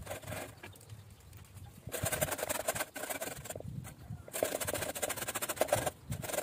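Raw potatoes grated by hand on a flat stainless steel grater, a rasping scrape in quick runs of strokes with short pauses between.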